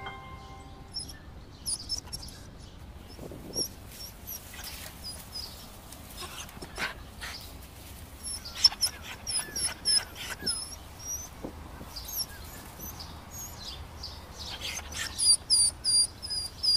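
A dog whimpering in many short, high-pitched squeaks.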